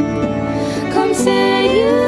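Irish music playing: several held notes with a melody line that slides and bends in pitch.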